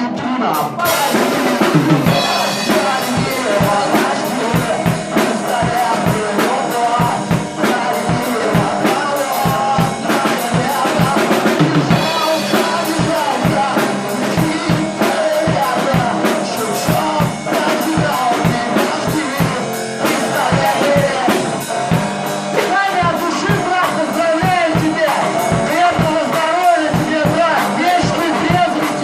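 A song played by a band with a drum kit keeping a steady beat, with a singing voice over it.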